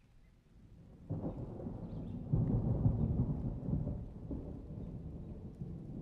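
A roll of thunder during rain: a deep rumble swells in about a second in, is loudest around the middle, then slowly eases off.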